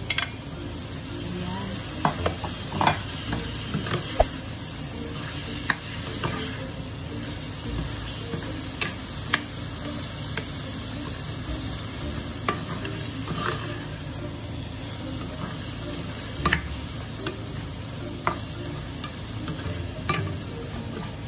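Chopped tomatoes, onion, garlic and pork sautéing in oil in a wide pan, sizzling steadily. A plastic spatula stirs them, knocking and scraping against the pan in frequent sharp clicks.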